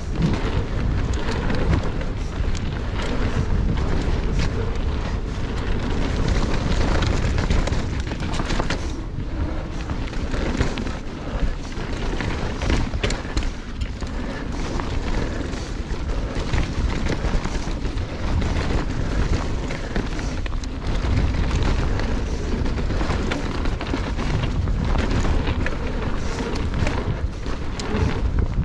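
Wind buffeting an action camera's microphone as a mountain bike descends fast, over a steady noise of tyres rolling on dirt and loose stones. Frequent short knocks and rattles come from the bike as it goes over bumps.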